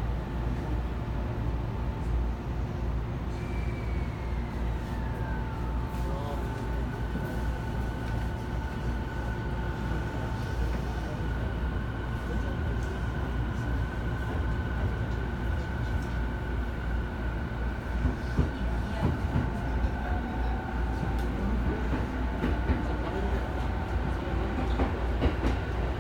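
E217-series electric train pulling away and picking up speed, heard from inside the car. The traction inverter whines in shifting electronic tones, with one tone falling about four seconds in and a steady high whine after it, over the low rumble of the running gear. Rail-joint clicks come in during the second half.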